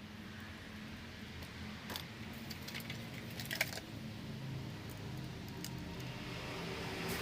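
A few light metallic clicks and clinks, like small metal parts being handled or set down, over a low steady hum.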